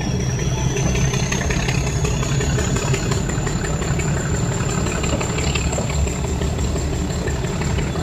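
Meter-gauge passenger train moving slowly out of a station, heard from an open coach doorway: a steady low engine rumble with a thin high whine that rises over the first few seconds and then holds steady.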